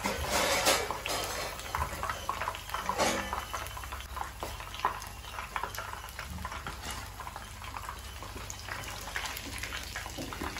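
Hot oil sizzling and crackling steadily around prawn spring rolls deep-frying, which have turned golden and are ready to come out. A metal slotted spoon knocks against the pan a few times, most in the first second and around three seconds in, as rolls are lifted from the oil.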